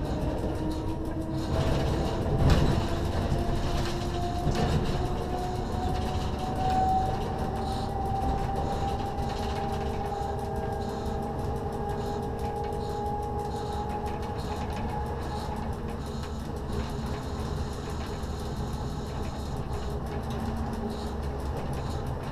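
Z 6400 electric multiple unit running, heard from the driver's cab: a traction whine climbs slowly in pitch as the train gathers speed and fades out about two-thirds of the way through, over steady rolling noise. A couple of sharp knocks come in the first five seconds as the wheels cross the points.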